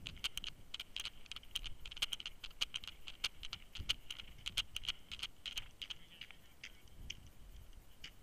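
Paintball markers firing in rapid, irregular volleys of sharp pops, several a second, thinning out after about six seconds.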